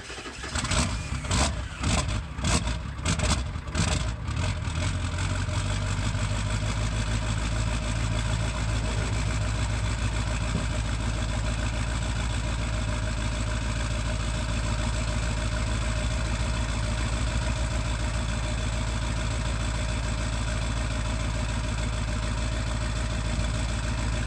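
1999 Ford F-250's 7.3 L Powerstroke V8 turbodiesel on a straight-piped exhaust, starting cold after a week at 20°F. It catches and runs rough and uneven, with loud irregular surges for the first four seconds or so, then settles into a steady idle.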